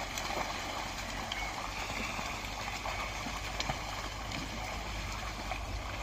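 A pair of bullocks and a plough wading through a flooded, muddy field: steady sloshing and splashing of water and mud, with a few faint clicks.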